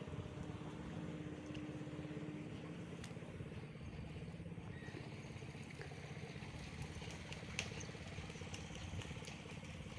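An engine or motor running steadily, with a fast low pulse that holds even throughout.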